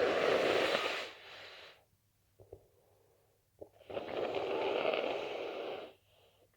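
A person blowing their nose hard, twice, each blow lasting about two seconds with a fluttering rattle; faint short clicks between the two blows.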